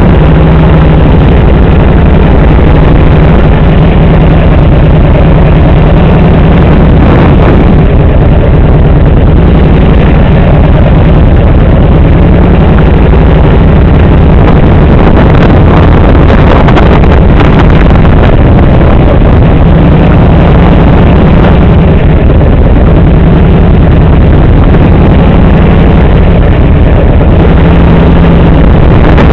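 Motorcycle engine running as the bike rides through low-speed turns, heard from a camera mounted low on the bike, with wind buffeting the microphone. The sound is loud and overdriven.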